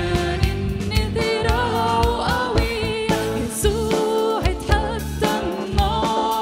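Live worship band playing an Arabic worship song: a woman sings the lead melody over a drum kit keeping a steady beat, keyboard and bass.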